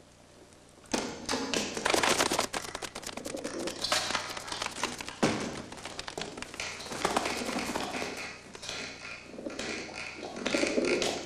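A dense run of rapid taps, clicks and clattering knocks begins about a second in. Pigeons start cooing near the end.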